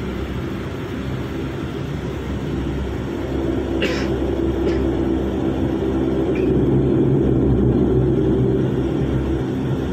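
Airliner engines and cabin rumble heard from inside the cabin during the takeoff roll, growing louder about two-thirds of the way through as the plane gathers speed. A couple of brief clicks or rattles come a little before the middle.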